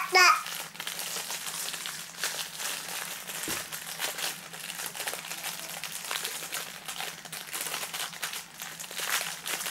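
Packaging crinkling and rustling as it is handled, an irregular run of small crackles and clicks.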